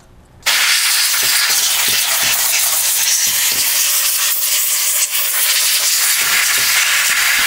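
Can of compressed air spraying through its extension straw at a laptop to blow out dust: a loud, steady hiss that starts suddenly about half a second in.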